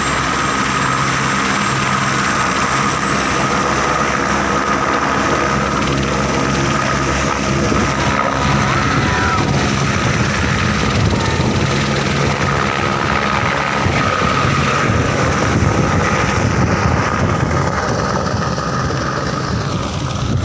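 A single-engine turbine helicopter runs on the helipad with a steady high turbine whine and an even rotor beat. About seven or eight seconds in it lifts off, and the sound turns into a louder, rougher rotor wash. Near the end the high end fades as it climbs away.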